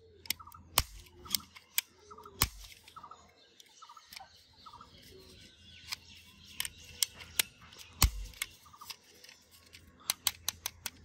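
Hard plastic clicks and snaps from a toy pistol being handled, its slide pulled off and pushed back on; three snaps stand out louder than the rest.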